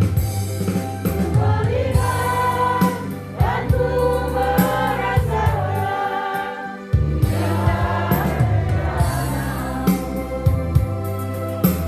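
A small congregation singing a Christian praise song together over an electronic keyboard accompaniment with a steady beat.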